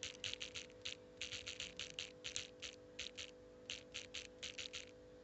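Typing on a phone keyboard: a run of quick, uneven taps, about twenty clicks, stopping near the end.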